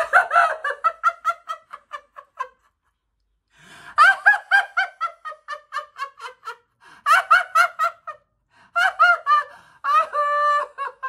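A woman's loud, theatrical laughter in several peals of quick ha-ha pulses, each peal fading away, with a gasping in-breath between them; near the end it turns into a short held, steady-pitched cry.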